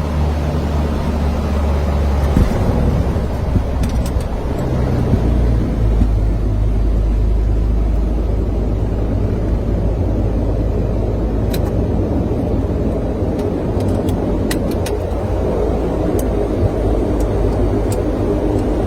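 Twin turboprop engines and propellers of a Dash 8 airliner, heard from the cockpit. A steady low drone shifts in pitch about two and a half seconds in and again around five seconds in, then becomes a heavy, even rumble, with a few faint clicks.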